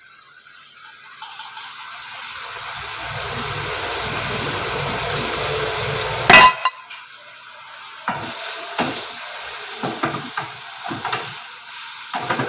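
Paneer cubes and spices sizzling in hot oil in a frying pan, the hiss swelling over the first few seconds. About six seconds in a utensil knocks sharply against the pan, followed by irregular scraping and knocking as the paneer is stirred with the masalas.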